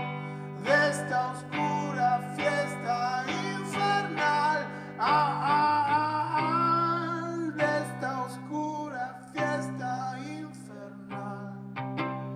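Solo electric guitar played live, quick picked notes over ringing low chords, with a man singing a melody that slides between notes in the middle.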